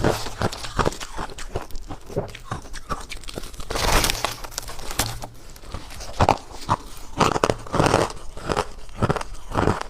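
Ice being bitten and chewed: an irregular string of sharp crunches, with a longer, brighter crunch about four seconds in.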